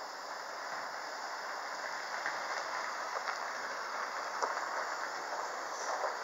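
Steady hiss of a gas-fired soldering iron burning at a leaded-light panel, with a few light clicks and taps of metal on the lead came, the sharpest about four seconds in.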